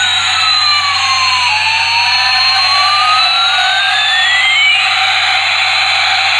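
Battery-operated toy Airbus A380's electronic jet-engine sound effect: a steady hiss with a whistle tone that glides down and then slowly back up.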